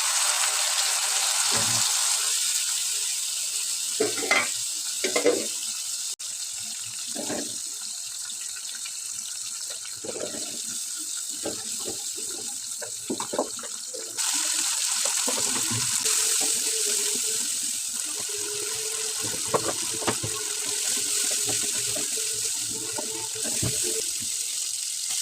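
Tap water running into a sink, the flow growing louder about halfway through, with scattered clinks and knocks of things handled in the water.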